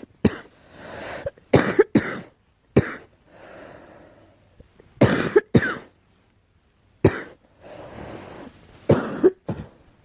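A girl coughing repeatedly in short bouts of one to three harsh coughs, with audible breaths drawn between the bouts.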